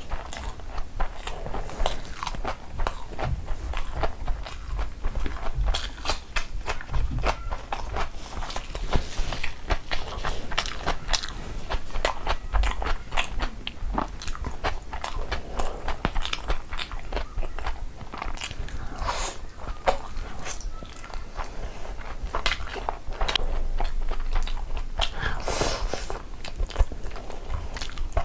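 Close-up eating sounds: a person chewing and biting mouthfuls of mutton curry with pulao, with wet, smacking clicks and occasional crunches, typical of papad or salad.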